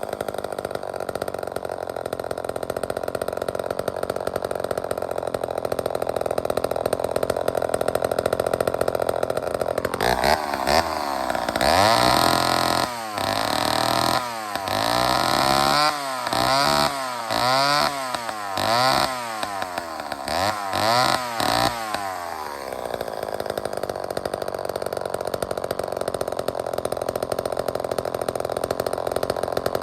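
Vintage Lombard two-stroke chainsaw running at high speed, then from about ten seconds in its throttle blipped about a dozen times, the engine note falling and rising with each rev, before it holds high again and drops away near the end.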